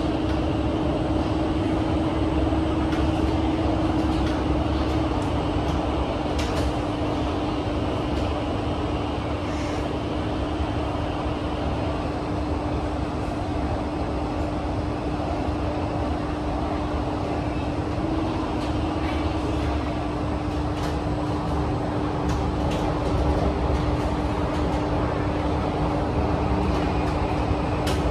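Kawasaki–CRRC Qingdao Sifang CT251 metro train running between stations, heard inside the passenger car: a steady rumble of wheels on rail with a steady hum held throughout and a few faint ticks.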